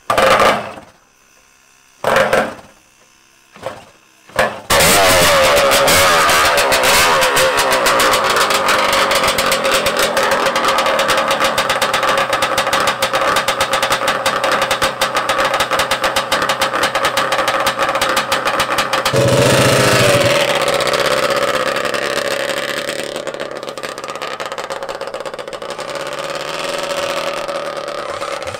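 Yamaha Banshee's 350 cc two-stroke twin, on twin expansion-chamber pipes, being started: it fires briefly and dies four times, then catches about four seconds in and runs steadily with a fast crackling two-stroke beat. About two-thirds through it is revved once, and it grows quieter toward the end as the quad moves off.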